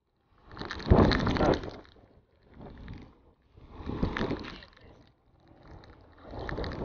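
Wind noise buffeting the microphone of a camera on a moving bicycle, coming in five swelling gusts with near-silent gaps between them, mixed with tyre hiss on the wet road.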